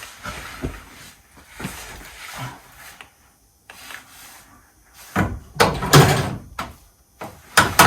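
Knocks, scrapes and clatter of tools and parts being handled while setting up to drill under the car's front end, with a louder bout of clattering about five seconds in and a sharp knock near the end.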